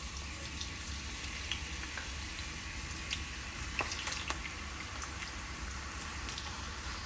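Cut potatoes frying in hot oil in a pan: a steady sizzle with scattered pops and crackles, over a low steady hum.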